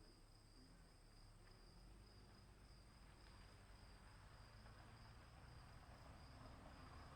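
Crickets chirping in a faint, steady high-pitched trill, unbroken throughout.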